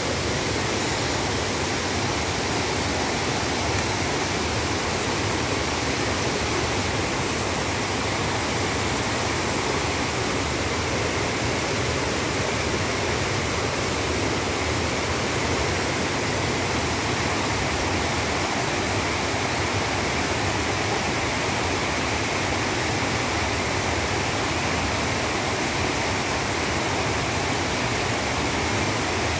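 Swollen mountain stream rushing over rock cascades, a steady loud roar of white water, running high after heavy rains.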